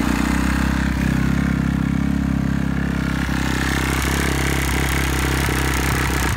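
2010 Kawasaki KX250F's four-stroke single-cylinder engine idling steadily on choke, running cold just after a one-kick start.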